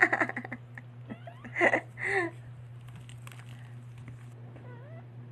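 Newborn puppies squeaking, two short louder cries about two seconds in and a faint squeak near the end, over a steady low hum.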